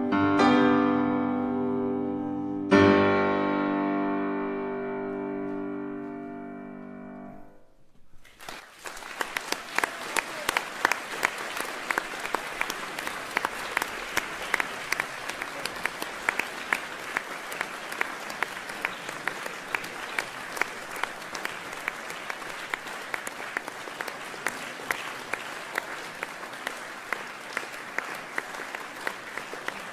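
Grand piano playing the closing chords of a sonata, the last loud chord struck about three seconds in and left to ring until it dies away. About eight seconds in, the audience starts applauding, and the applause carries on steadily.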